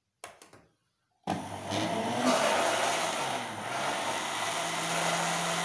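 A couple of light knocks, then an Oxford countertop electric blender switched on about a second in, running loudly as it blends the liquid cake batter of eggs, oil and milk.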